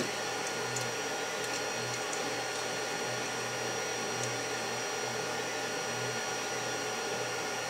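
A steady mechanical hum with a faint high whine, which holds even throughout. A few faint light clicks come from hands working a bolted bracket on aluminium extrusion.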